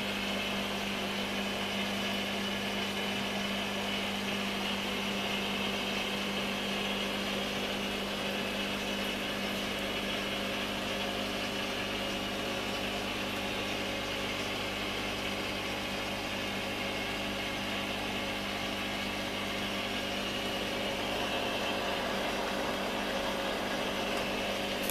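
Steady machine hum with an even hiss, holding the same pitch and level throughout.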